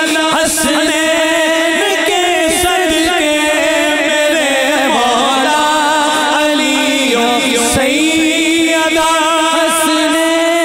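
A man singing a naat, an Urdu devotional praise poem, unaccompanied into a microphone, with long held, wavering notes.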